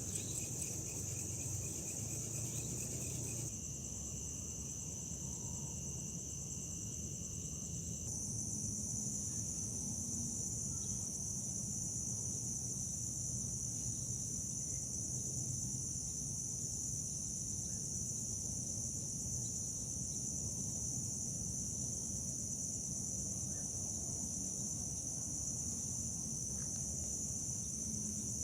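A steady, high-pitched insect chorus of chirring with a low rumble of background noise beneath. The chorus changes its pitch mix about three seconds in and again about eight seconds in.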